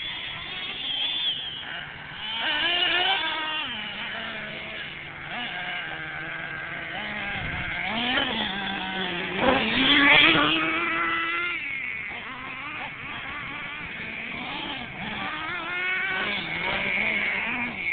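Small 3.5cc nitro engine of a Redcat Racing Earthquake 3.5 RC monster truck, revving up and down over and over, its pitch rising and falling. It is loudest about ten seconds in.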